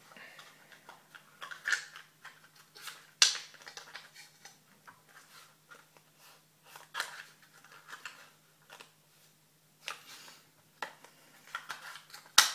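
Scattered small clicks and light rustles of things being handled close to the microphone, with one sharper click about three seconds in and another near the end, over a faint steady hum.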